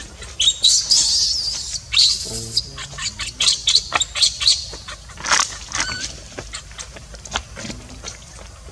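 Baby macaque squealing in a series of short, high-pitched cries, busiest in the first six seconds and thinning out after, the sound of a hungry infant crying for its mother. Dry leaf litter crackles and clicks under moving monkeys.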